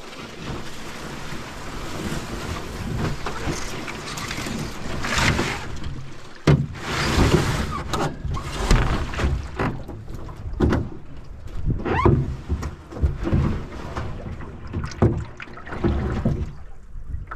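A canoe being worked over a beaver dam, its hull sliding and sloshing through wet grass and water. From about six seconds in it is paddled, a paddle dipping and pulling about once a second, with water splashing and knocking against the hull.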